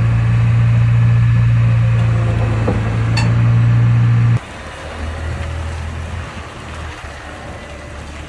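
Caterpillar 953 tracked loader's diesel engine running steadily and loudly while the machine is loaded onto a lowbed trailer, with a single sharp metal clank about three seconds in. A little after four seconds the sound drops abruptly to a quieter, lower engine idle.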